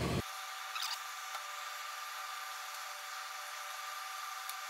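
A steady faint hum with a thin high tone running through it, and a few light knocks about a second in.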